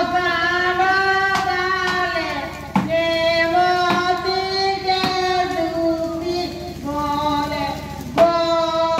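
A high voice singing a folk song of the nachni dance in long held notes, with a drum struck now and then beneath it.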